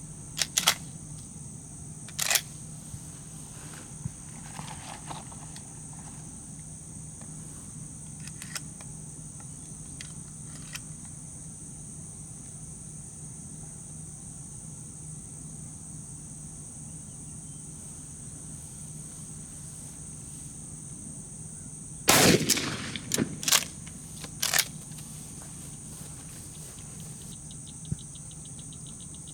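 Shotgun shots in a dove field: a quick pair about half a second in, another around 2 s, fainter distant shots around 8 to 11 s, and a loud close run of three or four shots from about 22 to 25 s. Under them is a steady high insect drone, and a fast insect trill starts near the end.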